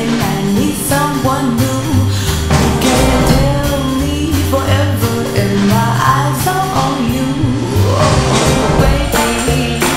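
Background music: a song with singing over a repeating bass line and a steady beat.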